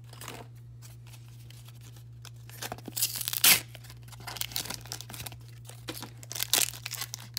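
Pokémon Evolving Skies card pack being torn open by hand. A cluster of rips comes about two and a half to three and a half seconds in, followed by scattered crinkling of the wrapper.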